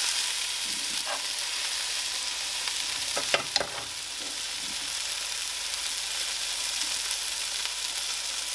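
Beef burger patties frying in a pan, hot fat sizzling with a steady hiss. About three and a half seconds in, a couple of sharp clicks, a cooking utensil knocking against the pan.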